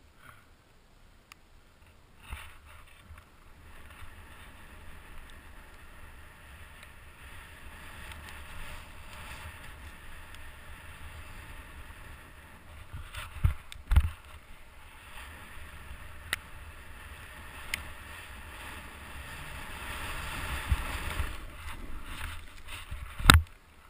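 Snowboard sliding over packed snow: a steady hiss of the board scraping, growing louder toward the end, with wind on the helmet-mounted microphone. A few sharp knocks come midway, and a loud thump comes near the end.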